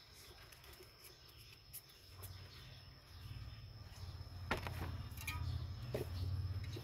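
A gardener's handling sounds: three sharp knocks and scrapes in the second half as a plastic basin of soil is worked over a foam planter box, over a low rumble that grows about halfway through and a steady high-pitched whine.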